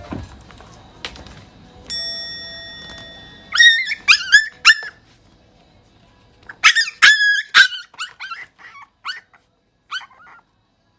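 Mame-shiba puppy giving short, high-pitched yipping cries in two quick runs of about four. A few fainter, shorter whimpering yips follow, tapering off.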